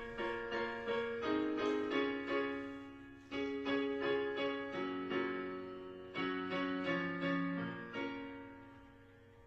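Piano playing a slow introduction to a song: single notes and chords struck at an unhurried pace, each left to ring, with the last ones dying away near the end.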